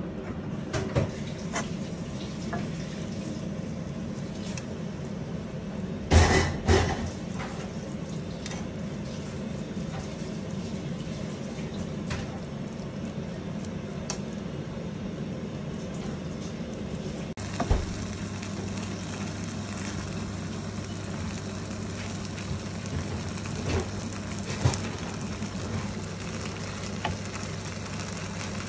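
Shredded chicken in cream sauce sizzling in a frying pan while being stirred, a steady hiss with a few knocks of the utensil against the pan, the loudest about six seconds in.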